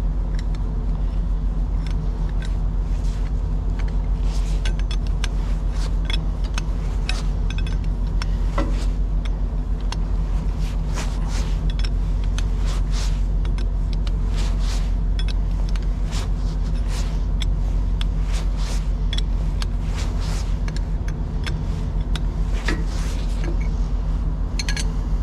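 A truck engine running steadily, with irregular metallic clicks and ticks on top from hand-cranking a fitting onto an air brake hose.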